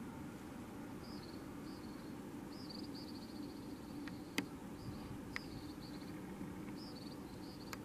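Short, high-pitched chirps and a quick trill repeat over a steady low hum. A few sharp clicks cut in, the loudest about halfway through.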